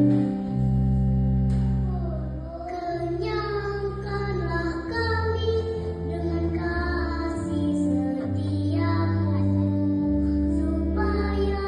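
A young child singing a psalm over steady, sustained instrumental accompaniment; the voice comes in about three seconds in, after a few held chords.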